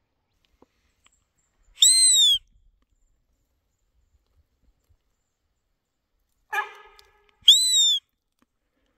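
Sambar deer call blown by hand twice, about five seconds apart, to lure deer in. Each blow is a loud, high-pitched squeal, about half a second long, that rises and then falls. A shorter, lower note comes just before the second squeal.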